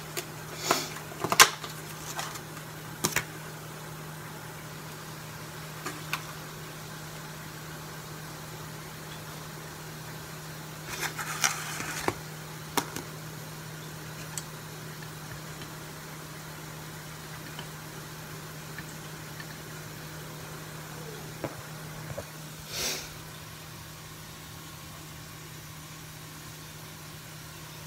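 A steady low electric hum of a kitchen appliance, with scattered knocks, clatters and rustles of hands putting food and chopsticks into a ceramic dish on a countertop, most of them in the first few seconds and around the middle.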